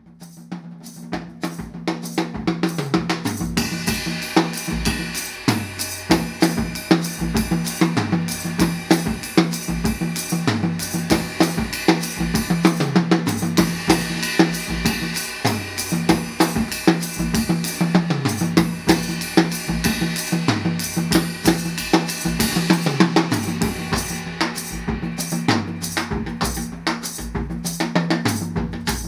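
Drum kit with Zildjian cymbals being played in a continuous groove of kick, snare and toms. It fades up over the first couple of seconds, and the cymbals wash in from about four seconds in.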